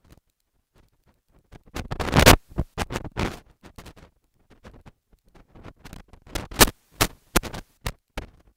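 Handling noise from a phone being held close and moved about: irregular rubbing, scraping and knocks against the microphone. It comes in two clusters, about two seconds in and again around six to seven seconds.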